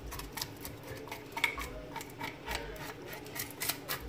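A kitchen knife scraping scales off a whole raw fish: a quick, uneven run of short rasping scrapes and clicks, several a second.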